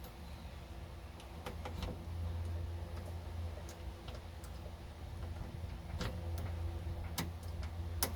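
Scattered light clicks and taps of a new ignition lock cylinder and its small metal parts being handled and fitted into a steering column, over a steady low hum.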